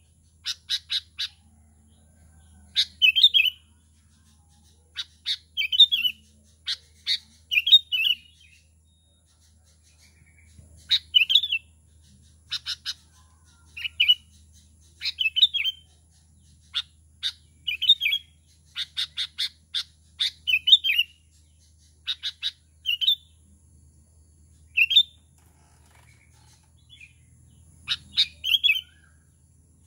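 Sooty-headed bulbul giving short, sharp chirping calls in quick clusters, repeated every second or two, with a brief lull about nine seconds in.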